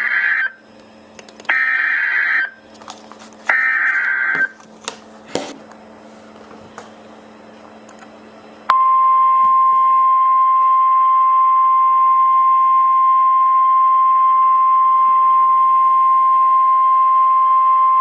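Emergency Alert System SAME header: three one-second bursts of screechy digital data. About nine seconds in, the NOAA Weather Radio 1050 Hz warning alarm tone starts: one steady high tone held for about ten seconds, the signal that a new warning follows, here a tornado warning.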